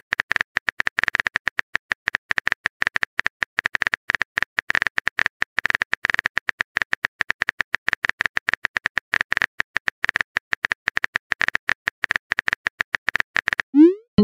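Rapid, irregular clicking of a phone-keyboard typing sound effect, many taps a second. Near the end a short rising swoop and a brief chime mark a text message being sent.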